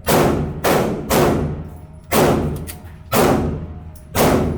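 Six gunshots echoing in an indoor shooting range: three in quick succession, then three spaced about a second apart, each followed by a ringing tail.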